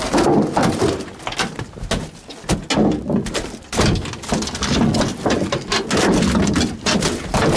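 Irregular knocks and thuds on an aluminum boat deck around a freshly landed halibut, coming thick and fast.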